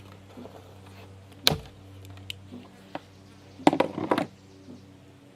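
Sharp clicks and knocks from hand work on a plastic culvert pipe joint, with zip ties and a multitool: one loud click about a second and a half in, then a quick cluster of clicks near the end.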